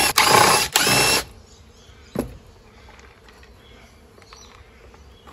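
Cordless impact driver running in two short bursts as it backs out screws, stopping about a second in. A single sharp knock follows about two seconds in.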